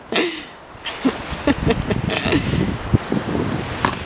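Wind buffeting the microphone, with rustling and handling noise, a few short faint voice sounds and a sharp click near the end.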